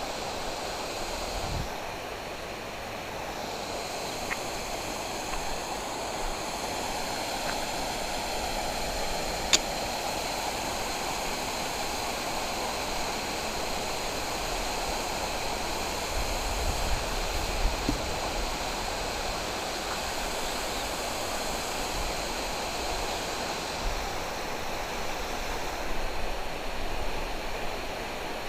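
Flowing canal water rushing steadily. A single sharp click sounds about nine and a half seconds in, and low bumps come now and then in the second half.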